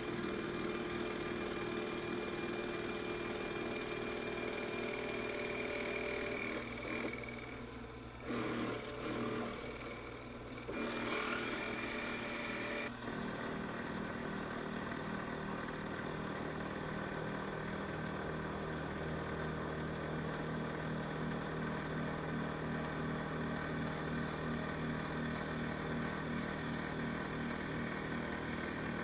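Taig CNC milling machine running, its spindle driving an end mill that squares a 1018 steel bar: a steady mechanical whine with several held tones. The tones change about 13 seconds in, and a low, even pulsing runs under them after that.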